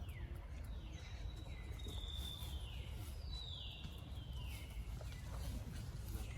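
A run of about six high-pitched calls from a small animal or bird, each sliding downward in pitch, over a steady low rumble.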